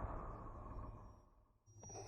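Darth Vader's mechanical respirator breathing sound effect: one hissing breath fades out about a second in, and after a short pause a click and the next breath begin near the end.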